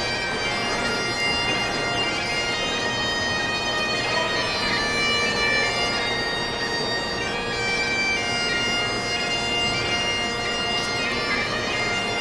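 Bagpipes playing a tune, the held drones under a melody that moves from note to note.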